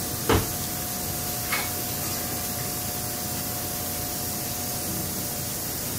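Steady hiss with a faint steady tone running through it, broken by one sharp thump shortly after the start and a faint click about a second and a half in.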